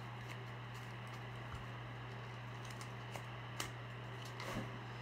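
Faint scattered clicks and rustles of a cardboard cutout being handled and bent by hand, over a steady low hum.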